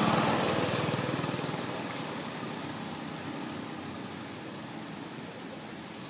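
A small engine running with an even firing beat, loud at first and fading away over about the first two seconds, leaving a fainter steady background noise.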